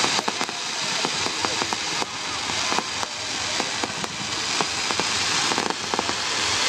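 Fireworks display: a dense, steady crackle of bursting shells with many sharp pops and bangs scattered through it.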